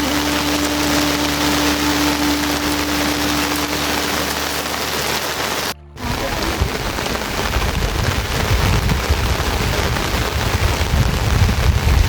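Heavy rain falling as a dense, steady hiss. A sustained held note sits over it for the first half. After a brief dropout about six seconds in, the rain continues with strong low rumbling.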